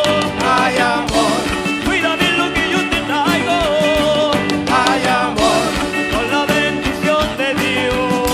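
Latin American folk band playing live: a wavering melody line over a steady beat.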